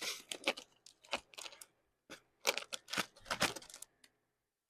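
Close-up eating sounds: crunchy chewing in quick crackly bites, in two runs, stopping about four seconds in.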